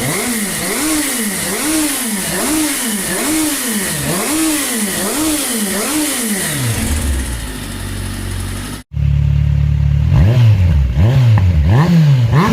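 Kawasaki Versys 1000 inline-four engine blipped again and again in quick revs, then settling to idle, breathing through a straight header with the stock end tip. About nine seconds in, the sound breaks off and a louder take follows: the same engine on its stock header with an aftermarket tip, idling and then revved again.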